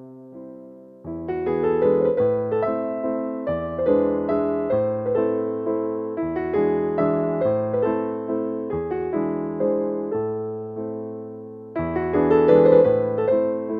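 Background music on piano: struck notes and chords that fade after each attack. The playing is sparse at first, grows fuller about a second in, and swells louder near the end.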